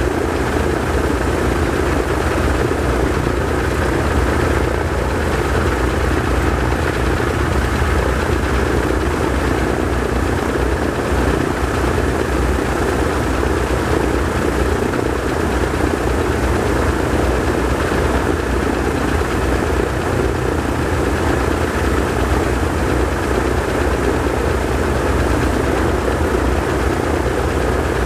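The twin Pratt & Whitney R-1830 Twin Wasp radial engines of a PBY Catalina running steadily together on the ground, their propellers turning, in an even engine run with no change in speed.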